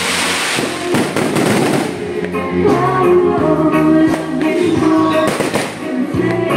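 Fireworks crackling and popping for about the first two seconds, then music with held notes takes over, with another short burst of crackling about five seconds in.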